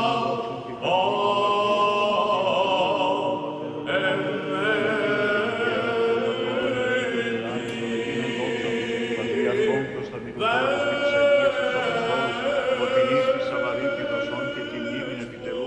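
Orthodox-style liturgical chant: a choir of voices singing long held notes, in three phrases that begin about a second in, at about four seconds and at about ten seconds.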